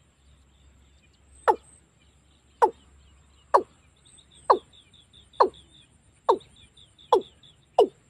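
Male watercock calling: a run of short notes, each dropping quickly in pitch, about one a second at first and coming closer together toward the end.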